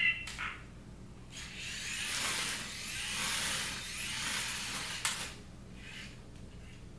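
Parrot Jumping Sumo minidrone rover giving a rough, unpitched whirring hiss for about four seconds. It starts shortly after a brief burst and ends in a sharp click.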